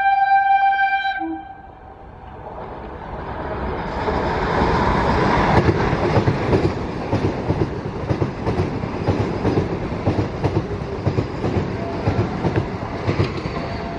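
Vande Bharat Express electric train sounding a steady horn that cuts off about a second in. Then the rush of the passing train and its wheels clattering over the rail joints build and carry on as the coaches pass close by.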